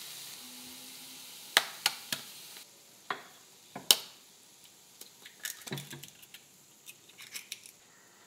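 Onion-tomato masala sizzling in a frying pan while eggs are knocked sharply against the pan's rim and cracked in. The sizzle quietens about two and a half seconds in, and light clicks of handling follow.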